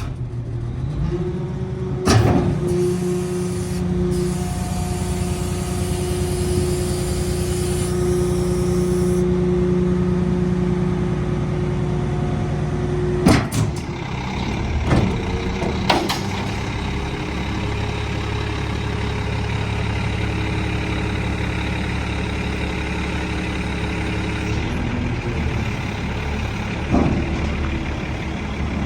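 Diesel engine of a 2007 American LaFrance garbage truck running steadily. A held tone rides on it for about the first thirteen seconds, with a high hiss over several of those seconds, and there are a few sharp clicks at irregular spacing.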